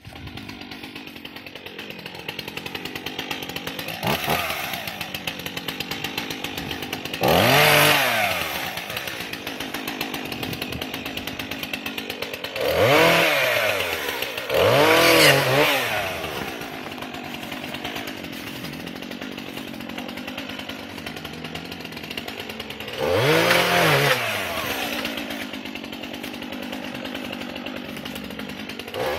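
A two-stroke chainsaw idling, revved up hard about four times, its pitch rising and falling each time, as it is put to the antlers of two locked whitetail bucks to cut them apart.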